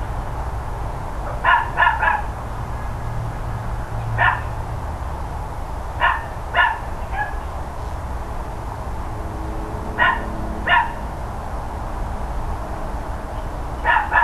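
Dog barking: about a dozen sharp barks, singly and in quick runs of two or three, a few seconds apart, over a steady low background hum.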